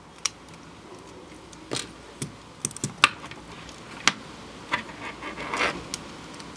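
Plastic Lego pieces clicking and rattling as they are handled and fitted onto a small Lego car: irregular sharp clicks, with a brief scrape a little after five seconds.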